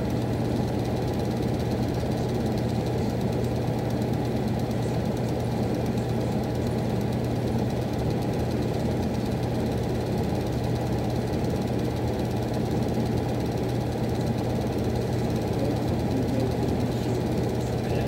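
Miller E2 furnace running: a steady low hum with a fine, rough rattle under it, unchanging throughout.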